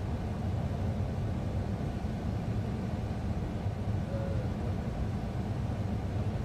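Steady low rumble of a running vehicle, even in level with no rise or fall.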